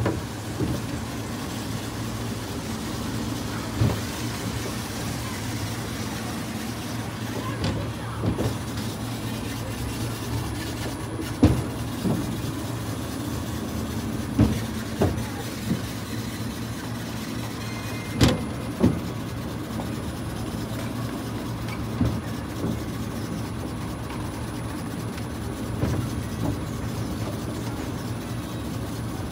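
Pedal-powered monorail car rolling along its elevated rail: a steady low rumble from the wheels and drive, with occasional sharp knocks and clacks every second or few.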